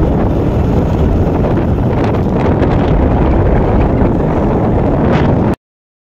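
Wind buffeting the microphone: a steady, loud rumble that cuts off abruptly to silence near the end.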